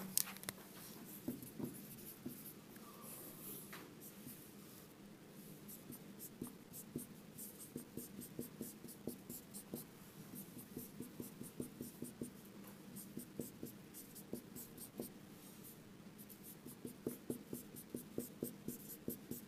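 Dry-erase marker writing on a whiteboard: a run of short, quick strokes and taps as single letters (T and F) are written down a column, one after another.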